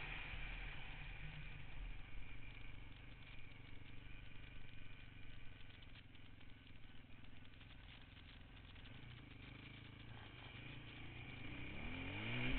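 Polaris Outlaw 525 quad's single-cylinder engine, heard from the rider's helmet: it drops back and runs low through the middle, then revs up again near the end, with some rattle.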